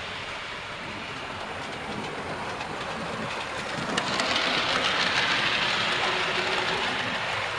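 00 gauge model tank locomotives and coaches running along the layout track, a steady rolling rattle of wheels on rail that grows louder about four seconds in as the train passes close, with a sharp click as it does.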